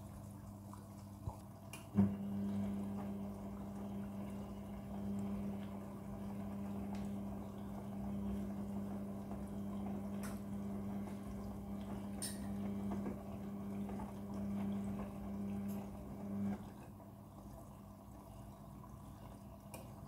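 Midea front-loading washing machine during a prewash: a click about two seconds in, then a steady hum with water sounds that cuts off suddenly about sixteen seconds in.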